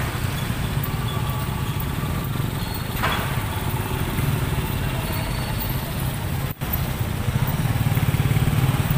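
Motorcycle and scooter engines running in slow street traffic, a steady low drone. It drops out for an instant about two-thirds of the way through, then comes back louder.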